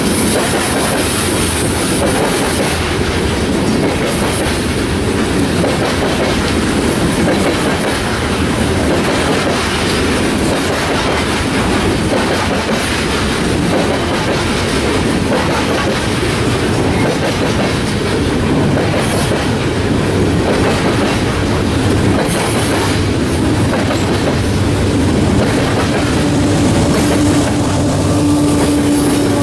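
Loaded coal hopper cars of a heavy freight train rolling steadily past, their wheels running over the rails. Near the end a steady engine tone joins as the rear-end pushing locomotive draws near.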